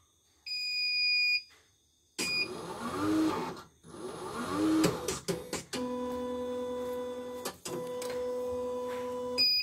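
CNY portable embroidery machine powering up and running its start-up loading: a beep about half a second in, then its motors whirring as the embroidery unit moves, twice rising in pitch, then a steady hum for several seconds, ending with a short beep.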